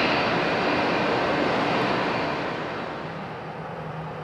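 Airbus A340's four CFM56 jet engines at takeoff power as it climbs away: a broad rushing jet noise that fades over the last couple of seconds. A steady low engine hum comes in near the end.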